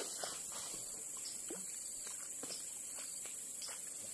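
A steady high-pitched drone of insects, with scattered faint rustles and clicks over it.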